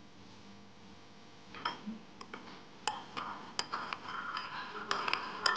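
A metal spoon clinks against a ceramic bowl while stirring a sauce. Sharp ringing taps start about one and a half seconds in and come faster and busier towards the end.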